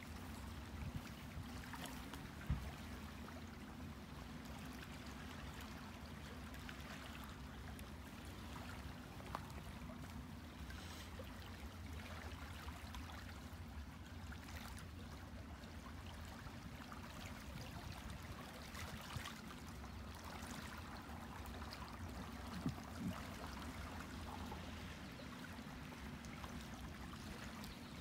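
Small waves lapping and trickling against a stony lakeshore: a steady soft wash of water with a low rumble underneath.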